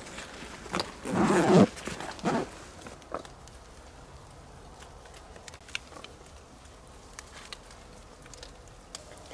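A short, wavering vocal sound from a dachshund about a second in, with a weaker one just after. Then a few faint knocks and rustles as a backpack is unpacked and wooden bowls are set down on stony ground.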